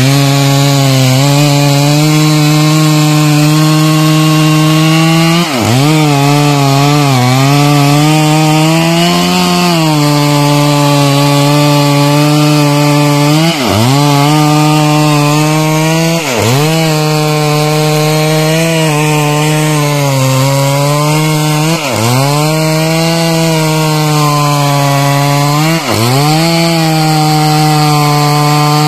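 Stihl MS 382 two-stroke chainsaw running at high revs while cutting into a teak trunk. Its steady engine note drops sharply and picks back up five times.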